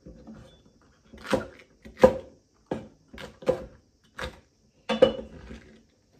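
Kitchen knife chopping green peppers into large pieces on a cutting board: a run of sharp knocks, about six strong ones a little under a second apart, with lighter taps between.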